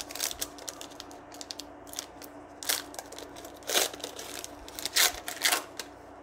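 Foil trading-card pack being torn and peeled open by hand, its wrapper crinkling in a string of sharp crackles, loudest near the middle and about five seconds in.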